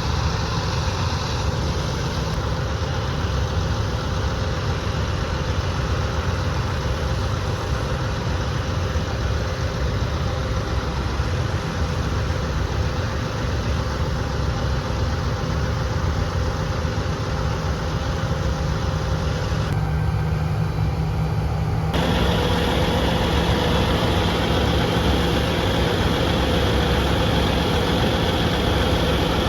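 Harvest machinery's engine running steadily with a constant low hum; the sound shifts abruptly twice about two-thirds of the way through.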